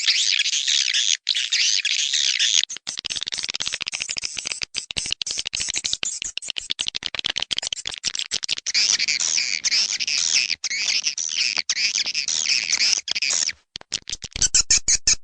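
Swiftlets twittering in a dense, continuous high chirring laced with rapid clicks, with a short break near the end.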